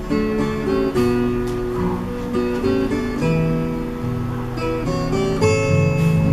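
Recorded music played back through Sony SS-H12 loudspeakers: a strummed and plucked acoustic guitar introduction, with chords changing every half second or so.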